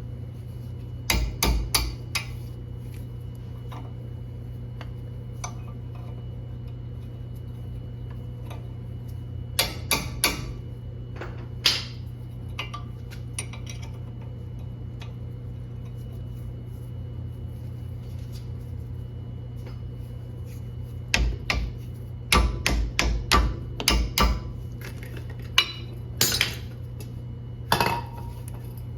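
Metal-on-metal knocks and clanks from work on a car's drive axle, in scattered groups of sharp strikes. The busiest is a quick run of about a dozen strikes about two-thirds of the way through. A steady low hum runs underneath.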